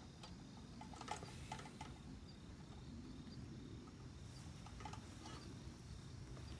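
Faint outdoor ambience: a low, even rumble, with a few short runs of quick chirps or ticks, about a second in and again around five seconds in.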